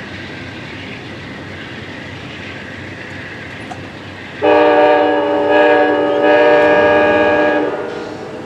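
Passenger train rolling past, then a loud multi-tone locomotive horn blast about four and a half seconds in, lasting about three seconds with two brief dips before it fades, from the train's Amtrak P42DC lead locomotive.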